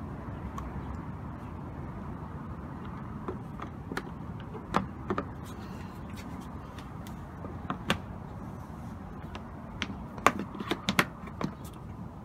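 Plastic clicks and knocks as a black plastic fog light cover is pressed and snapped into a plastic bumper cover: a few single clicks, then a quick cluster near the end, over steady background noise.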